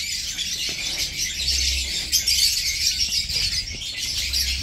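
Many small birds chirping at once in a steady, busy chorus.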